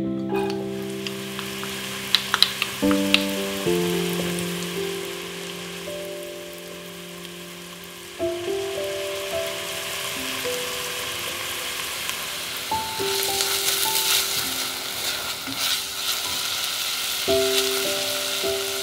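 Diced onion sizzling in hot olive oil in an enamelled cast-iron pot, the sizzle growing louder about two-thirds of the way through, with a few sharp clicks a couple of seconds in. Soft piano music plays over it.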